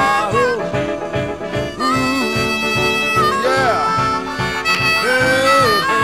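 Background music: an instrumental break between sung verses, with a steady beat under a lead instrument playing bending melody lines.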